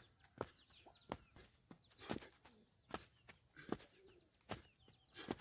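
Faint birds chirping in short falling notes, with sharp clicks about once or twice a second.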